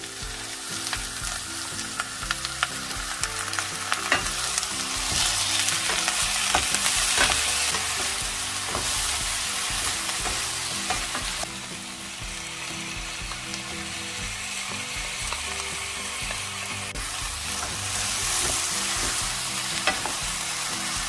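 Cabbage, onion and carrot sizzling in a frying pan with chilli seasoning sauce while a wooden spatula stirs them, with occasional scrapes and taps of the spatula on the pan. The sizzle swells about five seconds in and again near the end.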